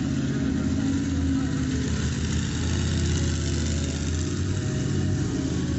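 A monster truck's big engine idling steadily, with a fast, even firing pulse.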